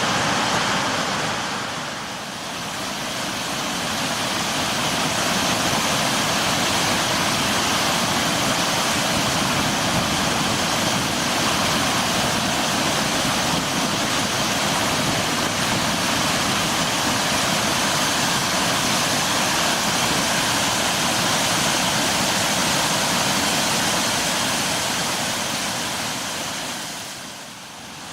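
Steady rushing noise of floodwater pouring out of a dam's spillway gates during a high-volume discharge, with brief dips in level about two seconds in and near the end.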